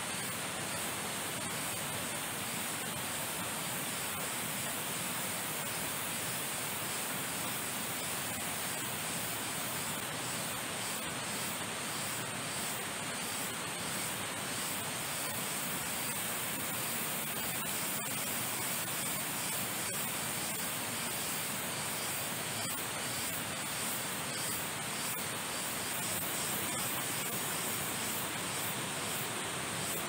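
Water rushing steadily as a continuous, even hiss.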